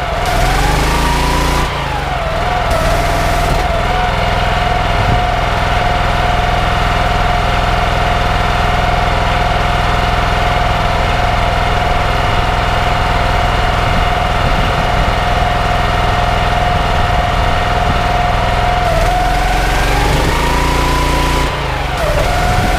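Loncin G420 14-horsepower single-cylinder petrol engine of a pressure washer, running under auto throttle control. It is at high revs while the lance sprays for the first couple of seconds, drops to a slower steady idle once the trigger is let go, and revs up again near the end as spraying resumes.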